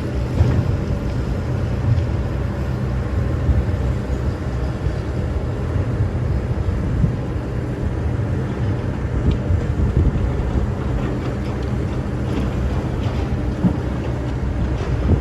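Excavator engine running steadily, with occasional light knocks over the drone.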